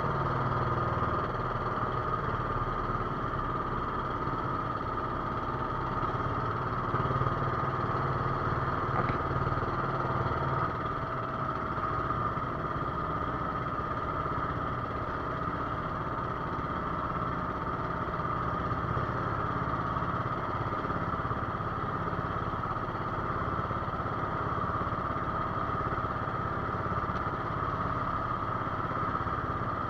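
Outrigger fishing boat's engine running steadily as the boat moves under way, with water washing along the hull.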